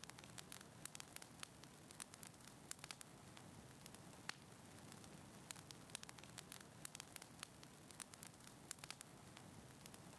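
Faint crackling of a wood fire in a fireplace: irregular sharp pops and snaps, sometimes several close together, over a steady low hiss.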